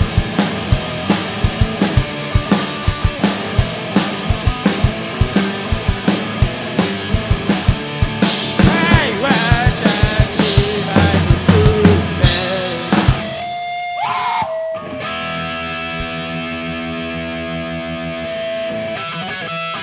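Live rock band of electric guitar and drum kit: a rapid, pounding drum beat under the guitar, with notes bending up and down. About thirteen seconds in the drums stop and a single held electric guitar note rings on steadily.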